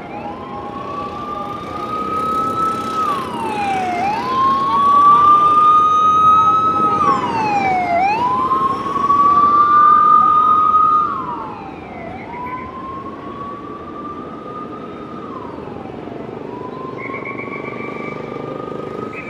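Police sirens wailing as a motorcade escort passes, each cycle a slow rise then a quick drop, repeating about every four seconds. They are loudest about halfway through with a second siren overlapping, then fall back quieter. Short pulsing siren tones come in near the end, over a steady hum of city traffic.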